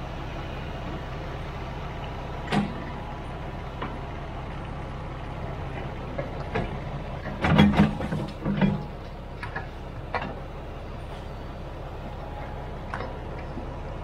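Engine running steadily at a low hum, with scattered knocks and clunks over it, the loudest a cluster of heavy clunks about eight seconds in.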